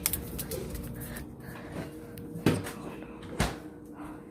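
A few scattered knocks and clunks of things being handled, like cupboard doors or objects set down, over a faint steady hum.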